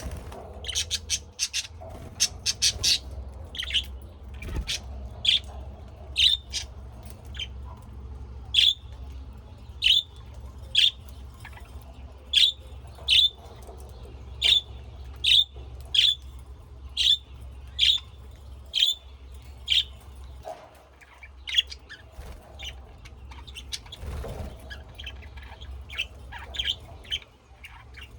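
A bird calling: short, sharp calls repeated about once a second, with quicker runs of chirps near the start and again near the end.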